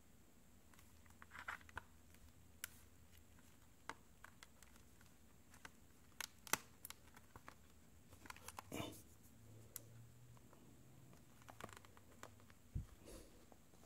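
Quiet room tone broken by scattered light clicks and taps from an iPad being handled, with a sharper click about six and a half seconds in and a soft low thump near the end.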